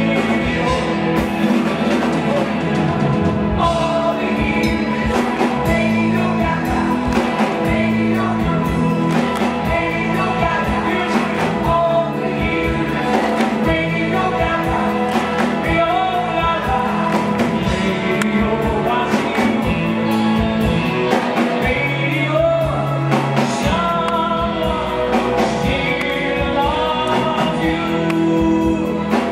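Live rock band playing: drum kit, bass guitar and keyboards, with a male lead singer.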